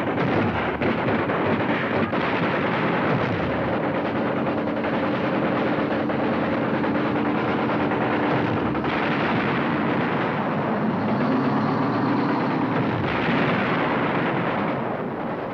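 Rapid, sustained machine-gun fire from river assault boats' deck guns raking the riverbank to soften up the landing area, over the steady drone of the boats' engines.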